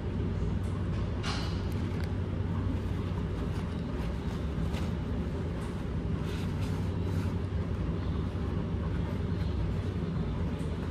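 Steady low drone of a ferry's engines and machinery, heard through the passenger deck, with a few light rustles and ticks as a cloth pouch and slippers are handled.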